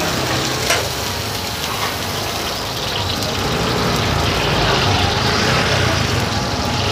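Skewered squid tentacles sizzling as they are swirled through shallow hot oil on a flat steel griddle, a steady frying hiss with a faint low hum underneath. A brief knock sounds under a second in.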